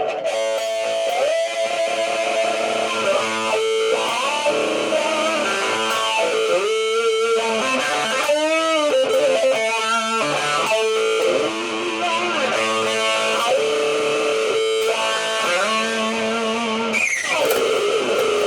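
Electric guitar playing an instrumental passage with frequent bent notes, and a long slide down in pitch near the end.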